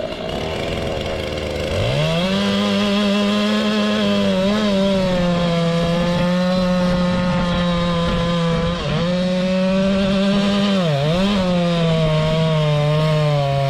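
Two-stroke chainsaw revving up about two seconds in, then running at full throttle as it cuts bark and sapwood off a large oak log. Its pitch dips briefly a few times as the chain bogs in the wood.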